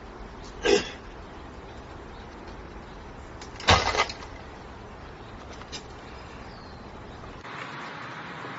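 Two sharp knocks about three seconds apart, the second a quick rattle of several hits, over a steady background hiss; a faint click follows, and the background changes abruptly near the end.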